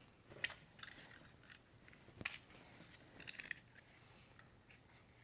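Faint handling of plastic toy tools: a few light clicks and taps, the sharpest about half a second in and just after two seconds, with a small cluster a little after three seconds.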